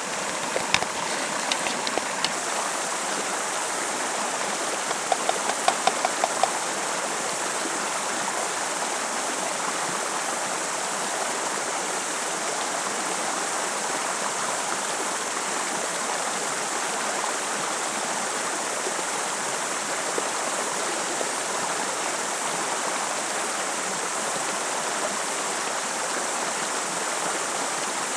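A rocky stream rushing steadily over stones. A few light clicks and knocks come in the first couple of seconds and again around five to six seconds in.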